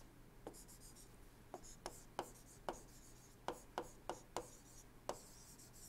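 Faint taps and light scratching of a stylus writing on a tablet screen, about ten short ticks at irregular spacing as a word is handwritten.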